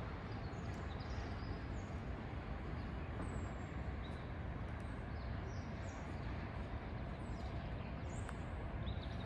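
Outdoor city ambience: a steady low rumble of traffic, with birds chirping in short, high, falling notes scattered throughout.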